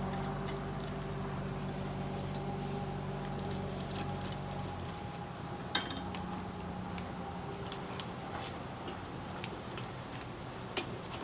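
Light metallic clicks and ticks of a bicycle drive chain being worked back onto its sprockets, with a sharper click near the middle and another near the end, over a faint steady low hum that fades about five seconds in.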